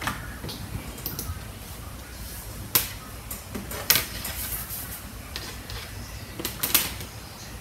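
Headphones being handled: a few scattered light clicks and knocks, the sharpest about three and four seconds in, over a low steady hum.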